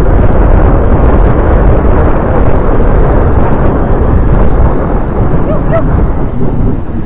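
Wind buffeting the microphone of a camera riding on a moving road bicycle: a loud, dense low rumble that eases slightly near the end.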